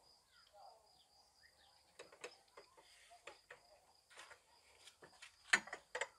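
Scattered light clicks and knocks of parts being handled, the loudest about five and a half seconds in, over a faint steady high tone.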